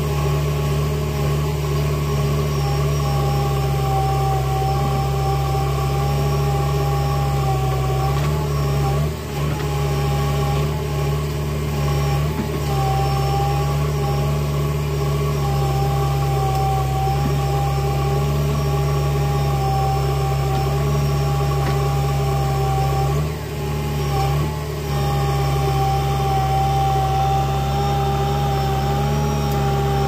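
JCB 3DX backhoe loader's diesel engine running steadily at close range, with a steady whine above the engine hum. The sound drops briefly about nine seconds in and again around twenty-three seconds in.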